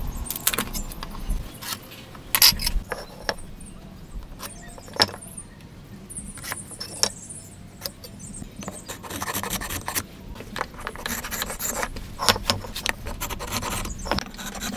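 Hand marking-out of a hardwood board: scattered clicks and taps of a tape measure, pen and steel square set down on the wood, and a pen scratching lines along the square. Longer stretches of rubbing and scraping come in the second half.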